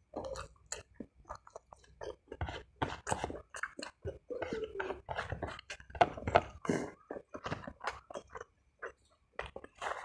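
Chewing a spicy meatball (bakso), with many short, irregular mouth clicks and chewing noises.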